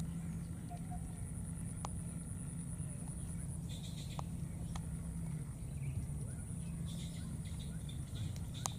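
Outdoor marsh ambience: a steady high-pitched drone over a low hum, with a few sharp clicks and small rustles while a baby monkey forages in shallow water among the grass.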